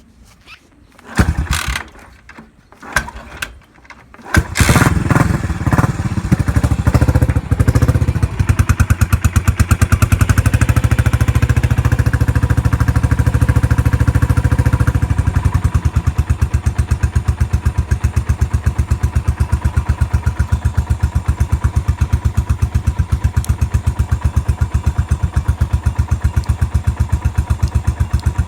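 A 1997 Yamaha SR400's air-cooled single-cylinder four-stroke engine is started. A few short sputters come before it catches about four seconds in. It runs unevenly for a few seconds, then settles into a steady, even idle of single-cylinder firing pulses.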